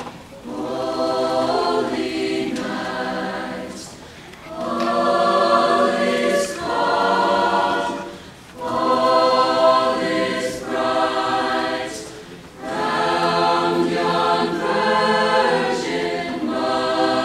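Choir singing sustained chords in four long phrases, with brief pauses for breath between them.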